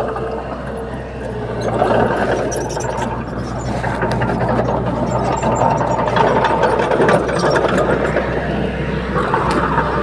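Heavy diesel engine of an earth-moving machine running steadily under load, with scattered clanks and rattles, getting louder about two seconds in.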